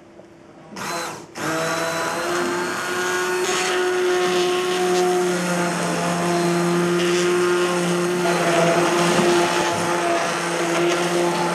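Hand-held immersion blender switched on about a second in, with a short first burst, then running steadily with a motor whine over the churning of chunky potato-leek soup as it is puréed in a stainless steel saucepan.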